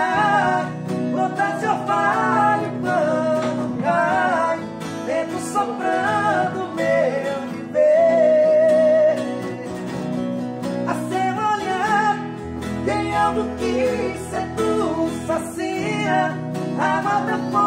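Acoustic guitars strummed with male singing in Portuguese. About eight seconds in, the voice holds a long note with vibrato.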